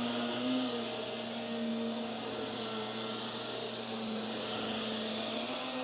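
Hoover WindTunnel Tangle Guard upright vacuum running steadily, a motor hum with a thin high whine above it; the hum's pitch wavers slightly in the first second.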